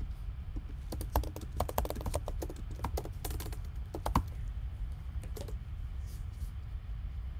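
Computer keyboard typing: a quick run of key clicks for about three seconds, ending in one louder keystroke, then a couple of stray clicks, over a low steady hum.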